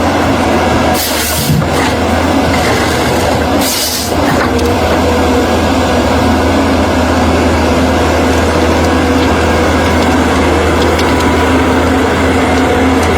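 Heavy bulldozer diesel engine running steadily under load, with two short hissing bursts about one and four seconds in.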